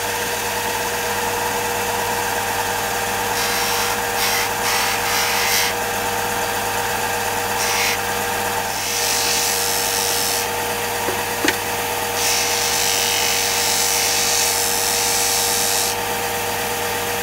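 Electric belt-and-disc sander running with a steady motor hum. In several stretches a harsher hiss rises over the hum as small cast pewter pieces are pressed against the spinning sanding disc, grinding the prongs about a millimetre thinner. A single sharp click comes about eleven seconds in.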